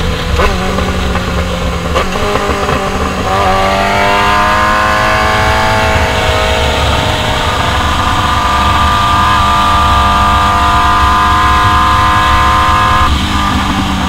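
Sport motorcycle engine through a straight-pipe exhaust, heard from the rider's seat with wind rush. A few sharp pops in the first two seconds, then the engine note climbs about three and a half seconds in, holds high and steady, and drops off abruptly about a second before the end.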